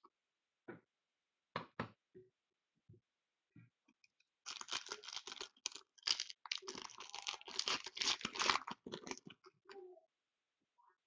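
Foil wrapper of a Totally Certified hockey card pack crinkling and tearing as it is opened by hand. A few light crinkles come first, then a dense run of tearing and crinkling starts about four and a half seconds in and lasts some five seconds.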